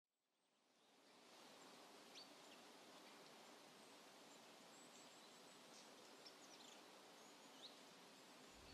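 Near silence: faint outdoor background hiss with a few faint, short bird chirps.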